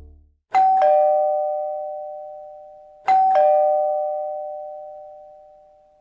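Two-tone ding-dong doorbell chime, a higher note then a lower one, sounded twice about two and a half seconds apart, each pair ringing on and fading away slowly.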